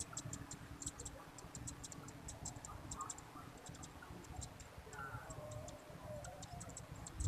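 Faint outdoor ambience: many short, irregular high-pitched ticks over a low rumble.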